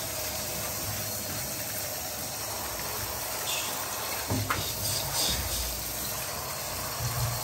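Water from a handheld shower head spraying in a steady hiss onto a kitten and the bathtub floor, with a couple of short knocks about four and a half seconds in.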